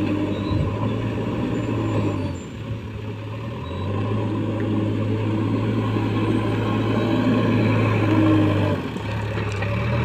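Diesel engine of a JCB backhoe loader working. Its note sags for about a second a quarter of the way in, then picks up and holds stronger under load, and eases off briefly near the end.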